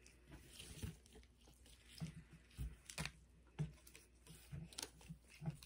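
Faint, scattered taps and rustles of gloved hands handling trading cards and setting them down on a wooden table.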